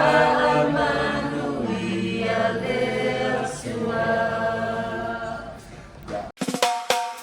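Background music: several singing voices holding sustained chords. About six seconds in it cuts abruptly to a track with sharp drum hits.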